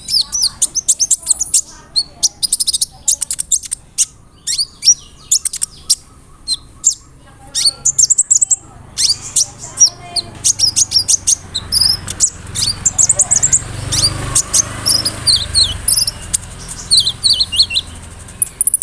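Kolibri ninja (konin) sunbird singing a fast, varied song of sharp high chirps and quick trills, near the end a rapid run of repeated notes.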